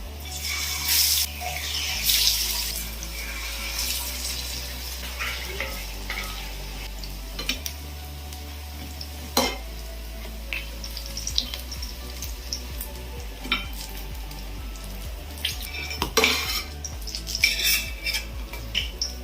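A metal spoon stirring and scraping in a cooking pot, with irregular clinks of utensil on metal and some sizzling of food frying.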